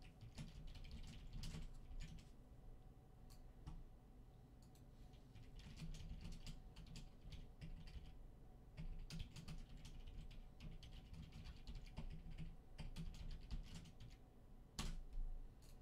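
Faint typing on a computer keyboard: irregular key clicks in loose runs, with one louder click near the end.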